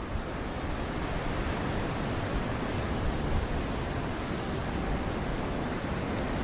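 Typhoon storm noise: a steady, even rush of strong wind and rough sea.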